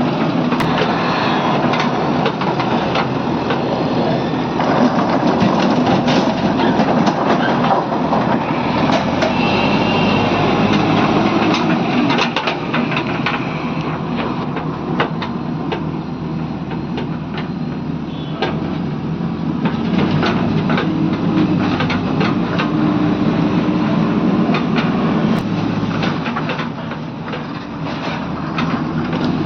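JCB 3DX backhoe loader's diesel engine running steadily under working load, with many sharp clattering knocks scattered through it.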